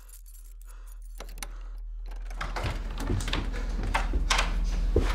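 Keys jangling and a door's lock and handle rattling as someone works the door from outside. The clatter starts about two and a half seconds in, over a low hum that swells steadily.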